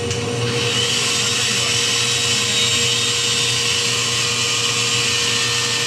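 Table saw running with a steady hum as a wooden board is fed through it; about half a second in, the blade bites into the wood and the cut adds a loud, higher rushing noise that holds steady.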